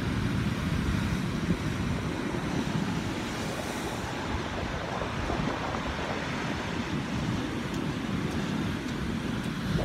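Rough ocean surf breaking and foaming over black shoreline rocks: a steady, continuous wash of heavy waves with no single wave standing out.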